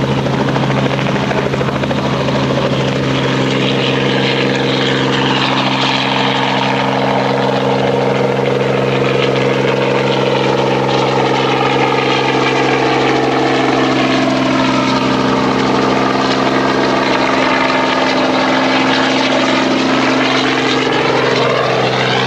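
Robinson helicopter running loud and steady, its rotor and engine giving a stack of constant low tones. Higher sweeping tones fall through the middle and rise again near the end as the aircraft moves.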